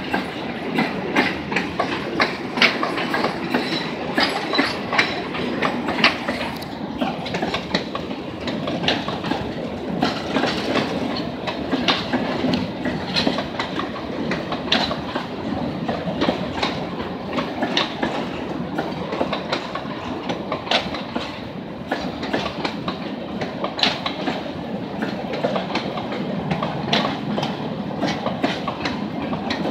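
Freight wagons (grain hoppers and box wagons) rolling past close by: a steady rumble of steel wheels on rail with a continuous clickety-clack of wheels over the rail joints.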